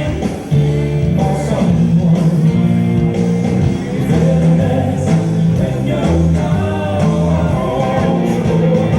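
Pop-rock song with a male or female vocal and a steady bass line, played over a hall's sound system for West Coast Swing dancing.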